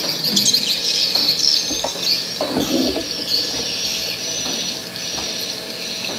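Recorded swiftlet calls played through a swiftlet house's lure speakers while the sound system is being tested: a loud, dense, high-pitched chirping twitter broken by short gaps. A brief lower handling knock about two and a half seconds in.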